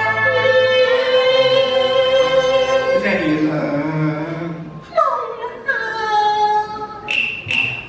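Cantonese opera singing with ensemble accompaniment: a woman holds a long, wavering note, then sings gliding, falling phrases. Two sharp percussion clicks come about seven seconds in.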